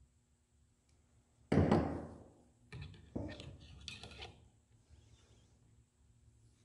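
A bent wire trigger being handled against a PVC jaw-jacker frame and hooked onto its metal eye bolt: one solid knock about a second and a half in, then a few quicker clicks and knocks of wire and plastic over the next couple of seconds.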